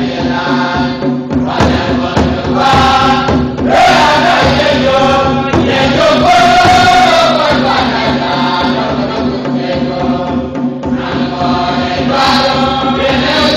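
Church choir singing together, many voices in one continuous hymn.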